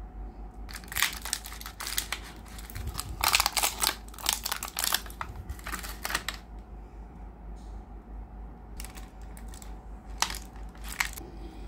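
Packaging being handled: crinkling and rustling with sharp clicks, in two spells, the second shorter and sparser.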